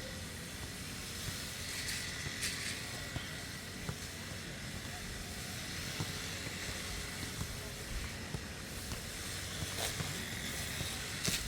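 Lawn mower engine running steadily, with a few faint knocks near the start and end.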